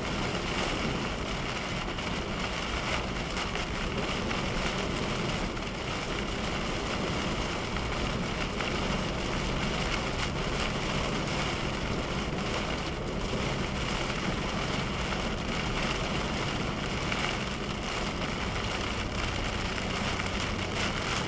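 Heavy wind-driven rain beating on a moving car, heard from inside the cabin, over steady road and engine noise.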